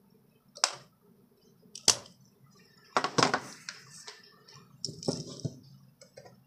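A spring-loaded desoldering pump fires twice, sharp snaps a little over a second apart, sucking solder off the pins of an amplifier's volume potentiometer so it can be replaced. Clicks and clatter of handling the board follow, all over a low steady hum.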